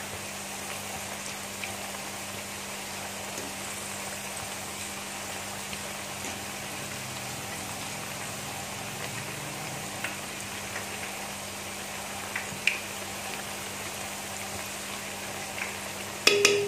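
Gram-flour pakoras deep-frying in hot oil in a wok: a steady sizzle and bubbling. A few light clicks come from the utensil against the pan as the pakoras are turned, with a brief louder clatter near the end.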